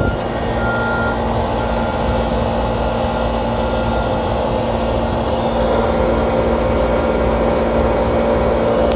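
Newly installed 3-ton Rheem air-conditioning condenser running steadily, its compressor and condenser fan giving an even hum with a steady low tone. It runs smoothly, described as purring.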